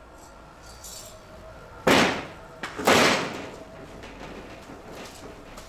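Welded steel tube scooter carrier knocking down onto a workbench: two loud clanks about a second apart, around two seconds in, each ringing briefly, with a lighter knock between them.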